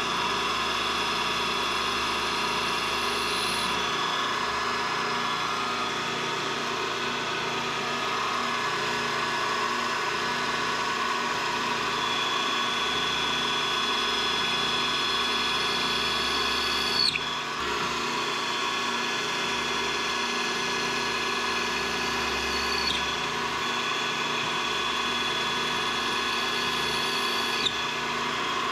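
CNC milling machine spindle running steadily as an end mill cuts an aluminium part, with a high whine that starts and stops several times as the machine moves.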